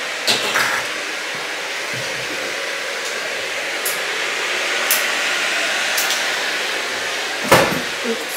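Steady rushing noise like a fan or blower, with a few sharp clicks and a louder knock near the end.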